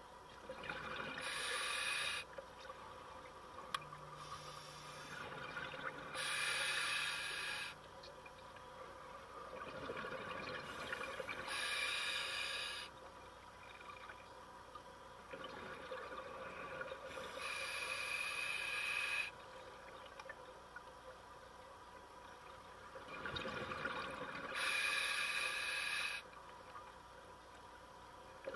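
Scuba diver breathing through a regulator underwater, in a slow even rhythm: a quieter intake between each of five loud exhales, each exhale a one-to-two-second burst of bubbling hiss, about one breath every five to six seconds.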